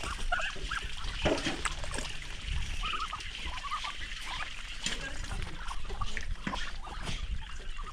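Birds calling: many short, repeated calls over a steady low rumble.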